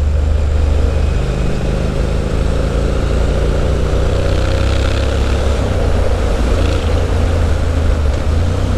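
Triumph Street Scrambler's 900 cc parallel-twin engine running through a Zard aftermarket exhaust while the bike is ridden along at a steady throttle, its note dipping and rising a little with the revs.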